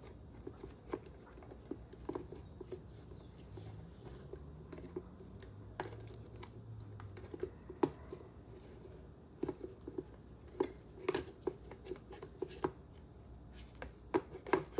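Scattered light clicks and taps of plastic RC car parts and wiring being handled, as an electronic speed controller is tried in place in the chassis.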